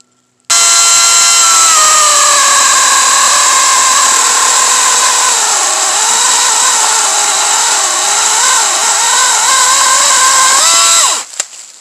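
WEN 16-inch cordless electric chainsaw switching on with a sudden high whine. The pitch drops as the chain bites into a small cedar log and wavers while it cuts through. The pitch rises briefly as the cut finishes, and then the saw stops.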